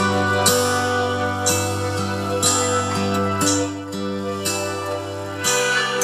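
Instrumental music with a steady beat, played through a hobby-built LM386 audio amplifier and loudspeaker box and heard in the room, while the amplifier's bass-boost tone control is being turned. The deep bass thins out near the end.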